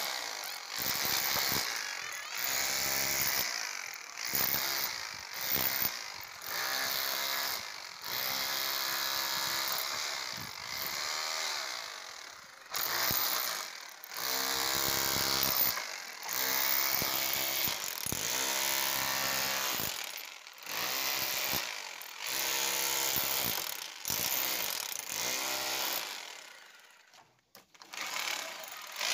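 Rotary hammer drill in chisel mode, its flat chisel bit hammering a wiring channel into a brick and plaster wall. It runs in bursts of a second or two with short breaks, and stops for a longer pause near the end.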